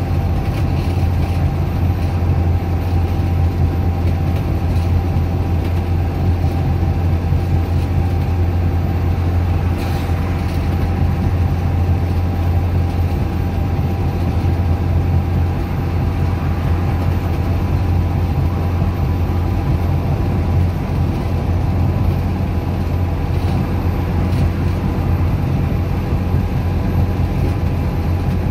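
Dennis Dart SLF bus's Euro 3 Cummins engine running at a steady, unchanging speed, heard from inside the bus, with a low drone and faint steady whines. A brief click sounds about ten seconds in.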